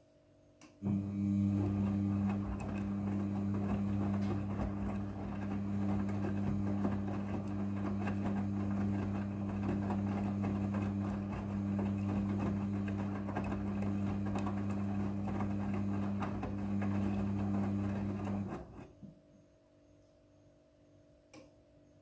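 Midea front-loading washing machine turning its drum for a wash tumble: a steady motor hum with clothes churning in the drum. It starts abruptly about a second in, just after a faint click, and stops shortly before the end; another click follows a few seconds later.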